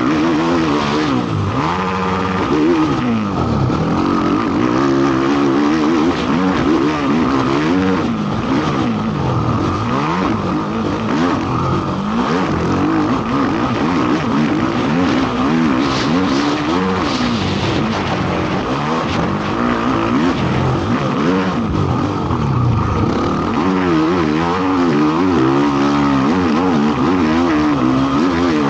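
Race ATV engine revving hard and backing off over and over as the quad is ridden around a motocross track, its pitch rising and falling every second or two.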